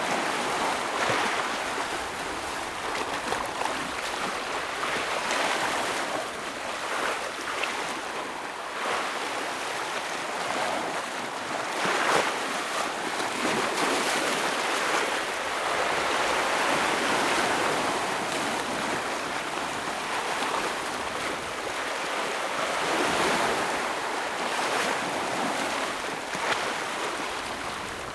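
Ocean waves breaking and washing over rocks on the shore, a continuous rush of surf that swells and eases every few seconds.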